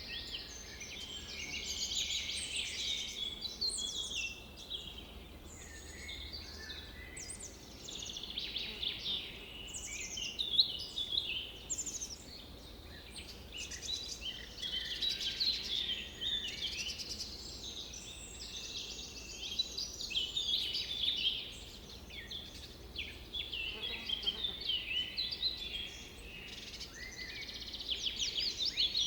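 Several birds singing and calling at once in a dense chorus of quick chirps and trills that swells and eases every few seconds, over faint low background noise.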